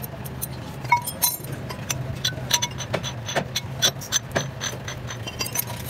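Thin steel differential shims and small metal parts clinking against each other as they are sorted and set down by hand. The result is an irregular string of light metallic clinks with brief ringing, over a steady low hum.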